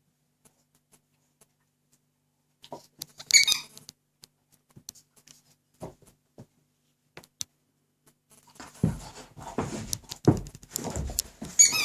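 Rubber squeaky pig toy squeaking as a young Dobermann bites it: one short squeak about three seconds in and another near the end. In the last few seconds there are dull thumps and scuffling from the dog's rough play with the toy.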